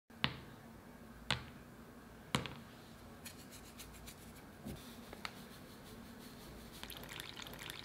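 Brown sugar cubes dropped one by one into a well of flour, landing with three sharp clicks about a second apart. Near the end comes a faint patter of fine grains sprinkled over them.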